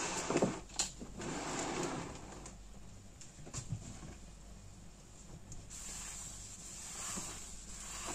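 Quiet handling noises: a plastic bucket set down on a countertop and a cloth handled, with a few light knocks and soft rubbing.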